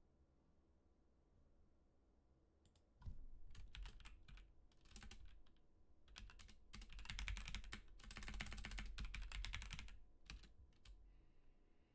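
Typing on a computer keyboard: short key clicks begin about three seconds in, quicken into a fast run of keystrokes in the second half, then end with a few last clicks.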